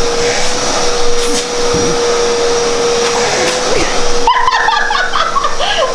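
Vacuum cleaner running with a steady whine over a rush of air, its hose drawn over a person's clothing. About four seconds in, the rush drops and a person's voice comes in over the motor's whine.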